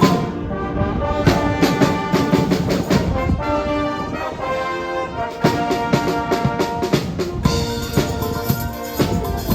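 Music played on brass instruments with drums and percussion.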